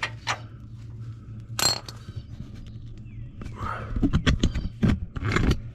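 Metal clinks and clatter of hand tools being handled, with one sharp clink about one and a half seconds in and a run of clinks near the end, over a steady low hum.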